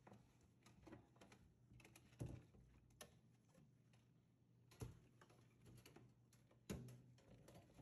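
Faint, scattered clicks and light knocks of a stainless steel wire dish rack and its plastic drip tray being handled and taken apart, with a few sharper knocks among them.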